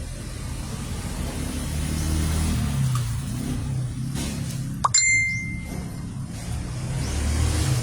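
Low engine rumble of passing road traffic, swelling twice. About five seconds in, a sharp metallic clink rings briefly with a clear high tone.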